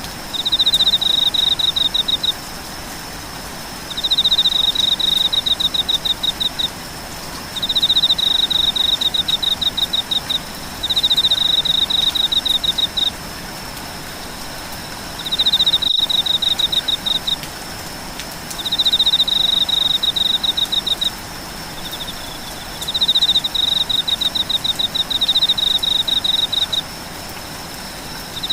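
Insects chirping in trains of rapid pulses, each train lasting two to three seconds and coming back after a short gap, about eight times, over a steady high-pitched whine and an even hiss of rain.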